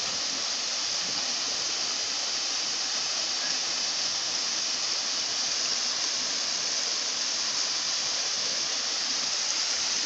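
Steady rushing of a small waterfall pouring over rock into a pool, an even sound with no splashes or breaks.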